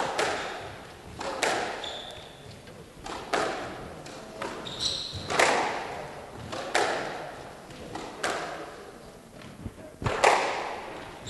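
Squash rally: the ball is struck by rackets and hits the walls as a sharp echoing knock about every one and a half seconds, with a few brief squeaks of court shoes on the wooden floor.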